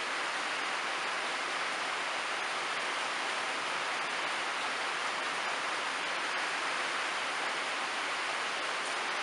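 Steady rain falling, an even hiss with no distinct drops or knocks standing out.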